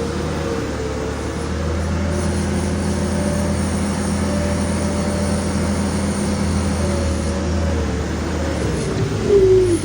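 Skid steer loader's engine running steadily under work, with a wavering squealing whine over it. A louder falling whine comes just before the end.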